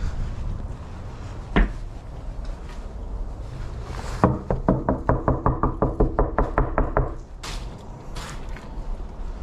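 Knocking on a door: a single knock, then a quick, even run of knocks lasting about three seconds, with a slight ring.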